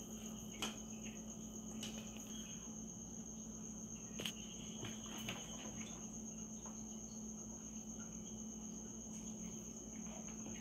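A cricket trilling steadily at a high pitch over a low steady hum, with a few faint clicks and taps as plastic Christmas baubles are handled.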